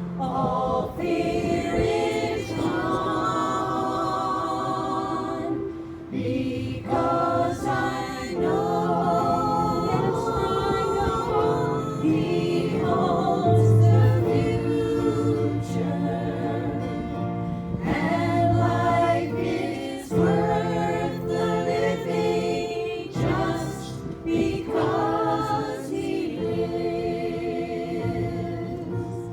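Several voices singing a gospel song together over low held notes, in phrases that break off every few seconds.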